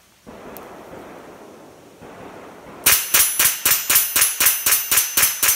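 Semi-automatic .22 rimfire rifle fired in rapid succession, about five shots a second, starting almost three seconds in. Before the shots there are a couple of seconds of rushing noise.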